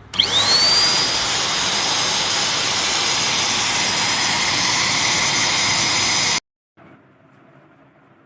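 Khind bagless vacuum cleaner's motor switched on, its whine rising quickly to a steady high pitch under a loud rushing airflow. It runs steadily, then stops abruptly about six seconds in.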